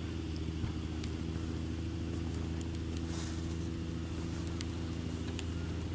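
Steady low hum of an idling engine, with a few faint crackles from a wood campfire.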